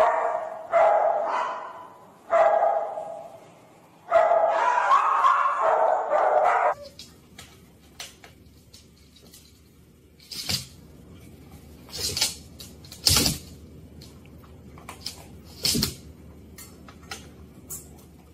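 Great Dane barking: three short deep barks, then one drawn-out bark lasting a couple of seconds, which cuts off abruptly about seven seconds in. After it come only scattered sharp taps and knocks.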